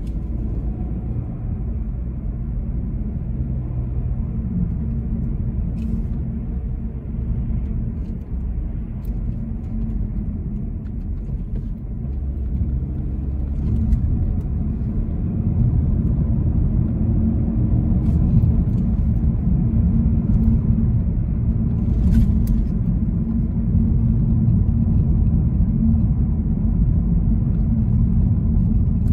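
A car being driven on a road, heard from inside the cabin: a steady low rumble of engine and tyres that gets louder about halfway through, with a few faint clicks.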